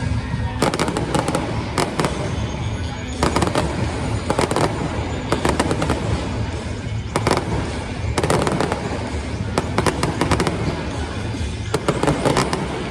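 Fireworks bursting in quick clusters of sharp bangs and crackles, group after group, over music with a steady low bass.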